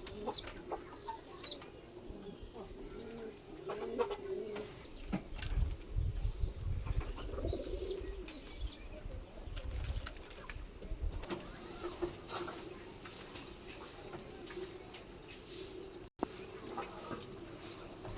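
Homing pigeons cooing in a loft, low and repeated, with short high chirps over them throughout.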